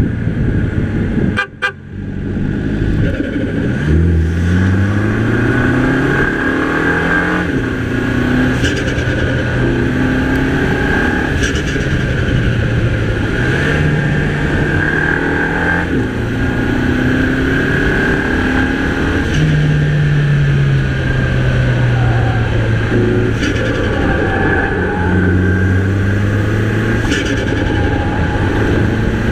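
Mini Cooper's 2.0-litre turbocharged four-cylinder engine pulling hard, its note climbing in pitch and dropping back at each gear change, several times over, with a steady high whine above it. There is a brief dropout in the sound about one and a half seconds in.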